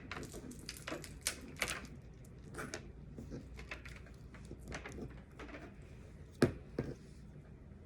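Irregular clicks, taps and short rustles of an action figure and its plastic packaging being handled and taken out of the box, with one sharper click about six and a half seconds in.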